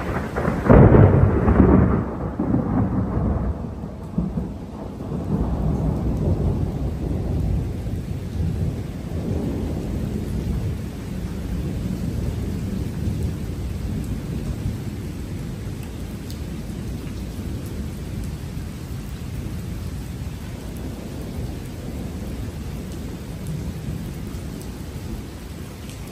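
Thunder: a loud peal breaks about a second in, then rolls on in several swells of low rumbling that slowly fade over the following twenty seconds.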